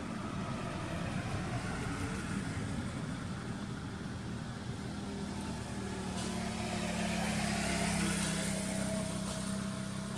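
A motor vehicle's engine running steadily with a low hum and road hiss. It grows louder to a peak about eight seconds in, then eases off.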